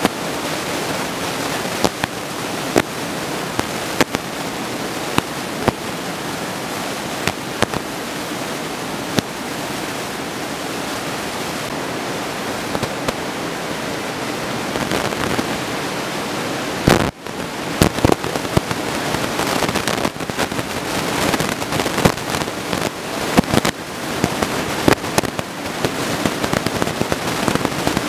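Steady rush of breaking ocean surf, with frequent sharp crackles and pops scattered over it. The sound cuts out briefly about 17 seconds in, then resumes with the crackles coming more often.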